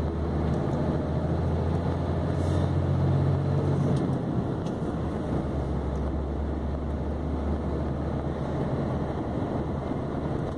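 Diesel engine of a VW Constellation 24-280 truck running while driving, heard from inside the cab as a steady low drone that swells slightly about three seconds in.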